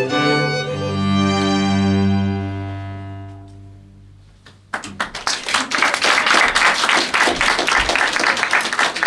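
A chamber ensemble of bowed strings holds the final chord of a piece and lets it die away. About halfway through, the audience breaks into steady applause.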